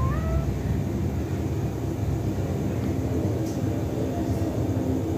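A steady low rumble throughout, with a cat's meow trailing off right at the start.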